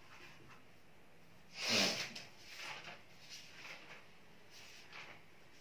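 A short audible breath through the nose about two seconds in, followed by a few faint scratchy strokes of a marker writing on a whiteboard.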